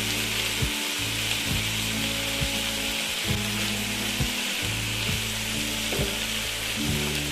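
A steady, even hiss over soft background music with held low notes that change every second or so, and light ticks scattered through it.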